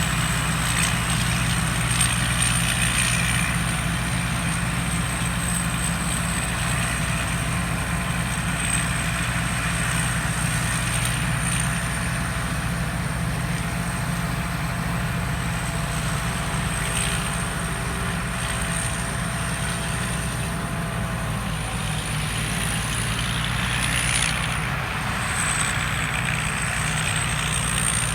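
Rice combine harvester running steadily: a diesel engine drone with machinery hiss, and a thin high whine that wavers slightly above it.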